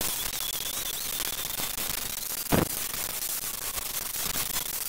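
Angle grinder running with its disc worked over the metal hub of an old wooden wagon wheel: a steady hiss with a thin high whine that fades after about a second, and one sharp knock about halfway through.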